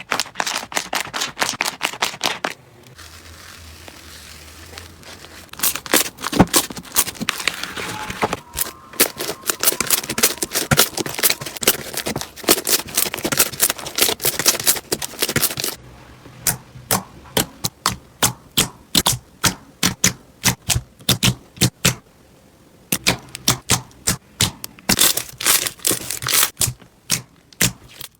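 Slime being worked, crackling and clicking in dense runs. There is a quieter pause a few seconds in, and a stretch of separate pops about two a second past the middle.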